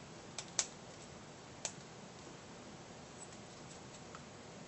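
A few sharp, light clicks of small hard parts being handled and set down on a tabletop, the loudest about half a second in and a faint last one near the end, over faint room noise.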